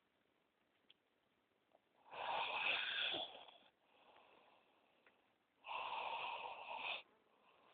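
Snoring: two noisy snoring breaths, one about two seconds in and one near the end, each lasting about a second and a half.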